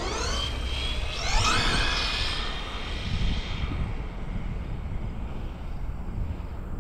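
Brushless electric motor of a Hobao VTE2 RC car on a 4S battery whining up in two short throttle bursts, the pitch rising steeply each time, then fading out, with a low rumble underneath.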